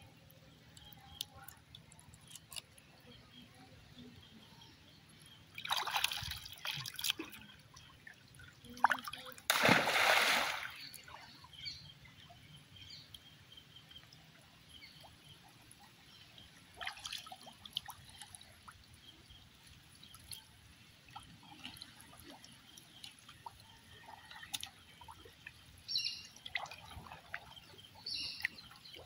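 Water splashing and dripping as a wading fisherman handles a wet cast net in a river. The biggest splash comes about ten seconds in, with a smaller one around six seconds and a few light splashes near the end.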